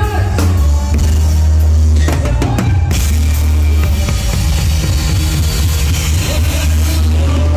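Live band playing a corrido with the drum kit close and loud over a heavy bass line. A run of drum hits comes about two seconds in, then cymbals wash in from about three seconds.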